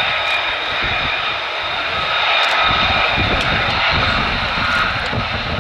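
F-35A Lightning II jet engine (Pratt & Whitney F135 turbofan) running steadily: a loud whine with several steady high tones over a rumble.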